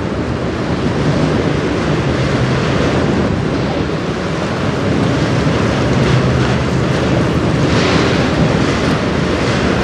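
Wind buffeting the microphone over choppy river water, a steady rushing hiss with a low engine hum underneath. The hiss swells about eight seconds in.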